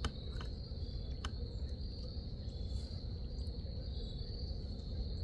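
Insects trilling steadily in one high, unbroken note, with a few faint clicks in the first second or so.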